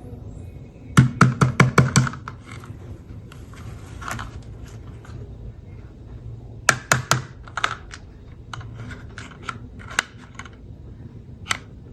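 Hard objects clicking and tapping as they are handled: a quick run of about six sharp clicks about a second in, another short cluster a little past the middle, then scattered single taps.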